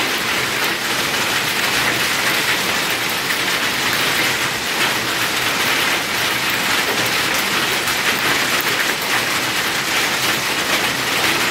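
Rain mixed with hail falling steadily on wet ground and nearby surfaces: a dense, even hiss of many small impacts.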